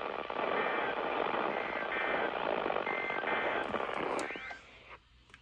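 NOAA Weather Radio broadcast heard through heavy static hiss, with three short warbling SAME end-of-message data bursts about a second apart, marking the close of the weekly test. The static drops away suddenly about four and a half seconds in.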